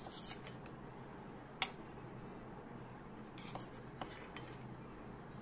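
Metal spoon clinking and scraping against a steel bowl while scooping tulsi-leaf paste: a few light clinks and short scrapes, the sharpest about a second and a half in.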